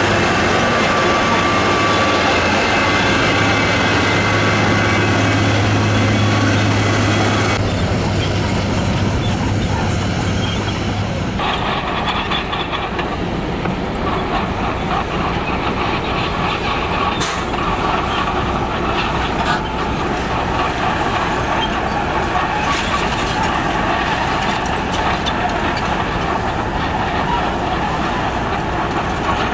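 Heavy construction machinery running steadily, with a deep engine hum. The sound changes abruptly about eight seconds in and again about eleven seconds in.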